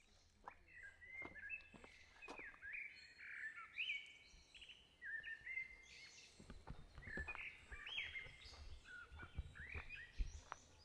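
Small birds chirping and twittering in quick, repeated short calls that sweep in pitch, faint. A few soft low thumps come in the second half.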